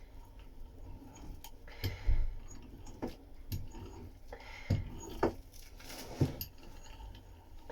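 Irregular light taps and clicks with a few dull low knocks, the loudest about two seconds in, like tools and materials being handled.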